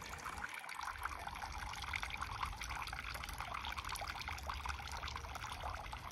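Water from a pump-fed bio filter splashing and trickling steadily back into a small fish pond, over a steady low rumble.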